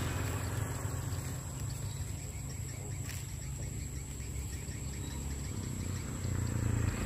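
Rural field ambience: faint insects chirping over a steady low rumble, with a thin steady high-pitched whine.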